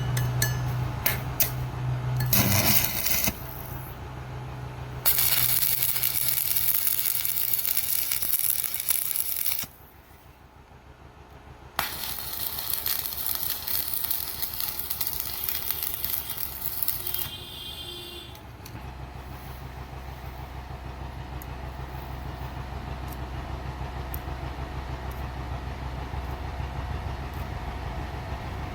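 Metalworking sounds: a few sharp metallic clicks over a low electrical hum, then two long stretches of loud hissing crackle with a short quiet gap between them. It ends with a steady low machine hum and faint regular ticking.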